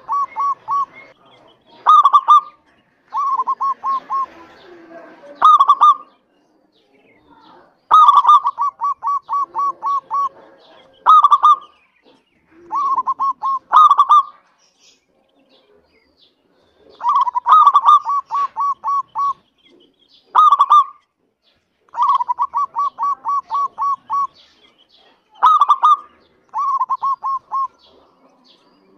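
Local-strain zebra dove (perkutut) cooing: phrases of quick, evenly spaced staccato notes, each run joined by a louder coo, repeated every few seconds with short pauses between.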